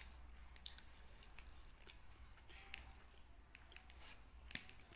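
Faint close-miked chewing and wet mouth sounds, with a few short clicks as a metal spoon scoops rice in a paper bowl; the sharpest click comes about four and a half seconds in.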